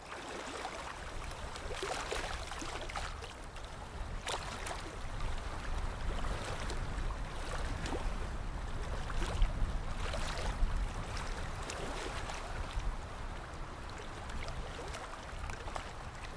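Water lapping and splashing against a hard edge such as a hull or shore, with a steady low rumble of wind underneath.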